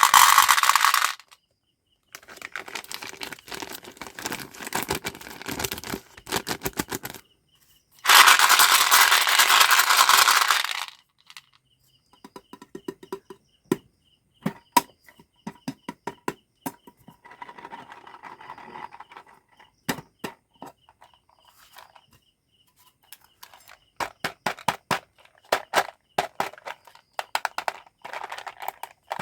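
Packaging being handled and unwrapped: crinkling and rustling of wrappers and boxes, with many small clicks and taps. Loud crinkling comes at the very start and again from about eight to eleven seconds in.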